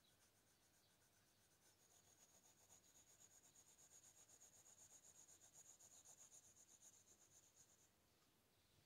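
Very faint rapid scratching of a coloured pencil shading on paper, about four strokes a second, starting about a second and a half in and stopping near the end.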